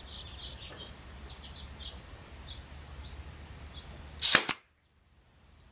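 A Central Pneumatic air staple gun fires once about four seconds in with a sharp bang, driving a staple through aluminum trailer siding into the wood framing beneath.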